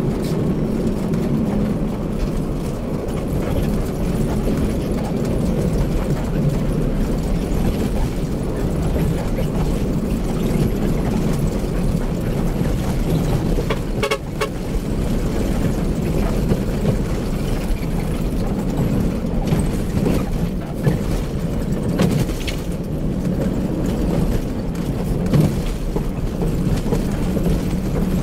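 Bus engine and road noise heard from inside the cab while driving, a steady low drone, with a few brief sharp rattles about halfway through and again near the end.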